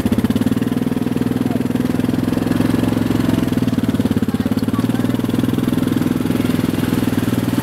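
Quad bike (sport ATV) engine running at a steady pitch with an even, fast pulsing beat, neither revving up nor slowing.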